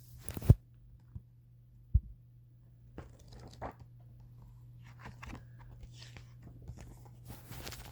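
Close handling noise: a sharp knock about half a second in, a second thud about two seconds in, then rustling and crinkling with small clicks, over a steady low hum.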